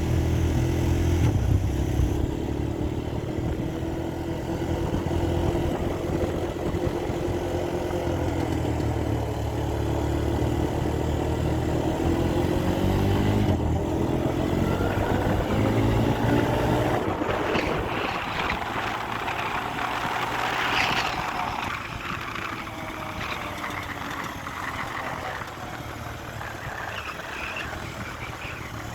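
Honda TRX250EX ATV's single-cylinder four-stroke engine running after a carburetor overhaul and valve adjustment: steady at first, then revving up and down, growing fainter in the second half.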